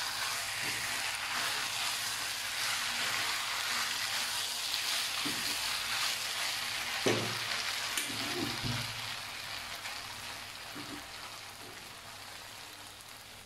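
Chicken and bell pepper strips sizzling in a non-stick wok while a spatula stirs them, with a few louder knocks and scrapes of the spatula against the pan about halfway through. The sizzle slowly grows quieter near the end.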